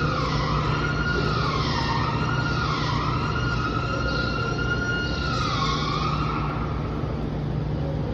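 Siren wailing, its pitch dipping and swooping back up in slow repeated cycles before fading out near the end, over a steady low hum.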